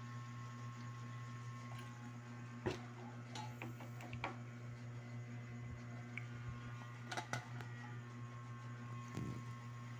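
A steady low hum with a few short, light knocks and clicks scattered through, two close together about seven seconds in.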